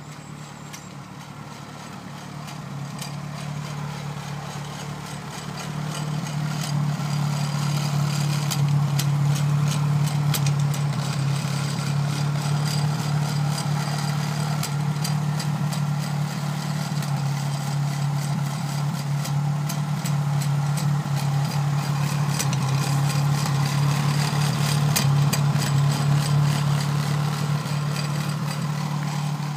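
Ford Crossflow 1300 four-cylinder engine idling steadily, getting louder over the first several seconds and then holding even. Scattered light clicks run over it.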